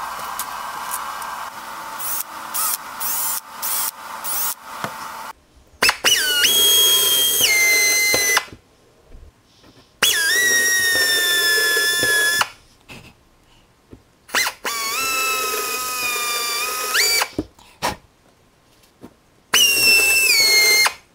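Plastic protective film crackling as it is peeled off aluminium sheet. Then an air drill driving a microstop countersink cage, run four times. Each run is a high whine that drops in pitch as the cutter bites into the aluminium.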